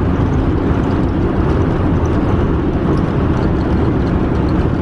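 Steady low road and engine drone inside the cabin of a moving vehicle.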